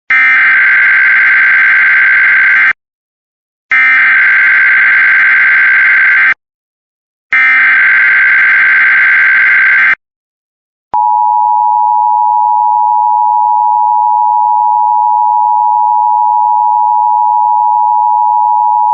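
Emergency Alert System SAME header: three bursts of digital data tones, each about two and a half seconds long and about a second apart. Then comes the steady two-tone EAS attention signal for about eight seconds, the sound that opens a new alert.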